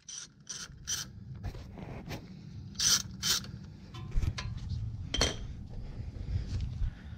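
Hand tools scraping and clicking on the front brake caliper's lower mounting bolt during a brake job: an irregular string of short scrapes and clicks, the loudest about three seconds in and about five seconds in.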